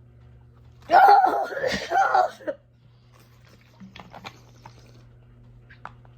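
A woman's loud, wordless vocal reaction to eating a cricket, lasting about a second and a half, followed by a few faint clicks.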